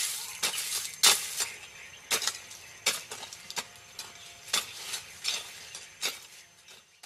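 A hand hoe chopping into soil and roots in irregular sharp blows, roughly one or two a second, fading out near the end.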